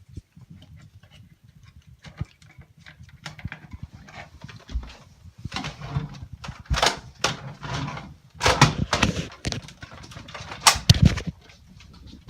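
A run of irregular knocks and clatters that gets busier and louder about halfway through, with the loudest hits near the end.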